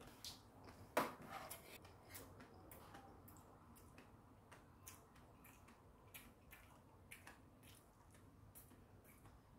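Faint, scattered clicks of stainless steel chopsticks and a spoon tapping against a metal compartment tray, the loudest click about a second in.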